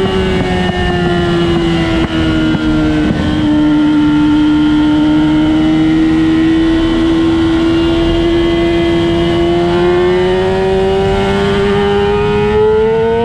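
A vehicle engine lapping a race track. Its note drops over the first few seconds as it slows, holds low and steady through the middle, then rises steadily as it accelerates near the end.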